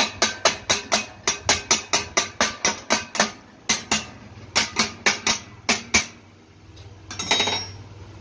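Chipping hammer striking the fresh welds on an empty steel refrigerant cylinder, knocking off slag: a quick, even run of sharp ringing metal taps, about four a second, that stops about six seconds in. A short scraping rush follows about a second later.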